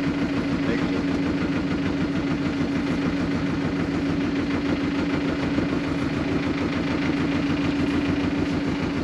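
Fishing boat's engine running at a steady speed, an even drone.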